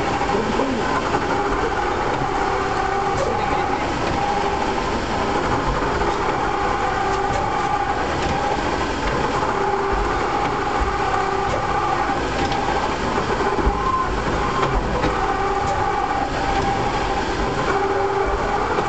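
Roof-tile press machine running, a loud steady mechanical drone with a hum that swells and fades every second or two.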